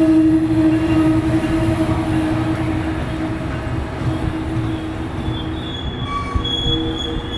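Diesel-hauled MARC commuter train rolling past: wheels rumbling on the rails with a steady engine hum that fades after a few seconds. A thin high wheel squeal sets in near the end.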